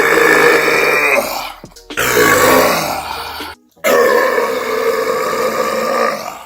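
A man's long, loud, low-pitched burps, one after another: one tails off about a second in, a second runs from about two seconds to three and a half and stops abruptly, and a third starts about four seconds in and lasts some two seconds.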